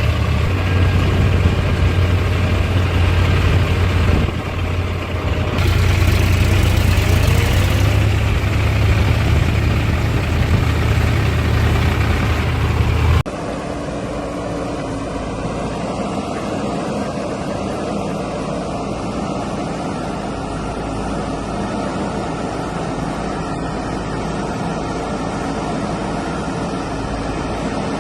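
Heavy diesel engines running steadily, with a loud low hum for about the first half. About halfway through the sound changes abruptly to a quieter, steadier engine noise.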